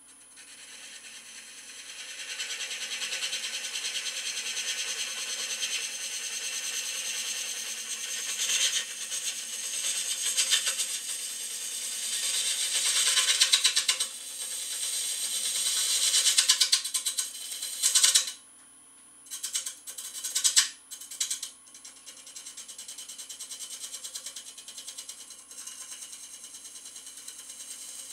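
Oneway Termite Tool's ring cutter cutting into the end grain of a cherry blank spinning on a wood lathe: a harsh cutting noise with a fine rapid ticking in it, over the lathe's steady hum. It builds, stops abruptly about two-thirds of the way through, comes back as a few short cuts, then settles into lighter, steadier cutting.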